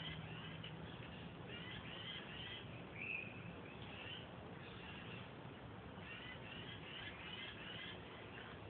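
Songbirds singing outdoors: runs of short, repeated high chirps, with one louder call about three seconds in.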